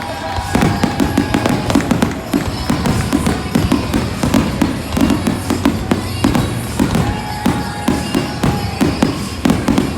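Fireworks display: a rapid, continuous barrage of bangs and crackles, several a second.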